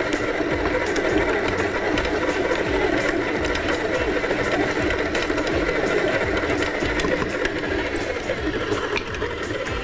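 Electric stand mixer running steadily, its motor driving the dough hook as it kneads a flour, yeast, oil and water bread dough.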